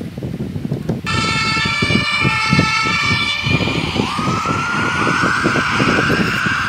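Emergency-vehicle siren sound that starts abruptly about a second in. At first it is a many-toned blare; about four seconds in, one tone glides up and holds steady. Under it are irregular rustling and knocks from the plastic Lego vehicle being handled and pushed on carpet.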